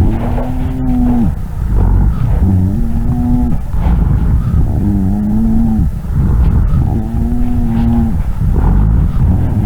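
Lung sounds heard through a stethoscope: a low-pitched, snoring-like musical tone with each breath, about a second long and coming roughly every two and a half seconds, over a rumbling breath noise. These are rhonchi (類鼾音), typical of secretions in the larger airways.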